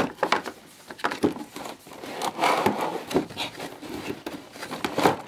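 Toy box packaging being wrestled open by hand: irregular rustling and scraping of cardboard and packaging, with sharp clicks and cracks.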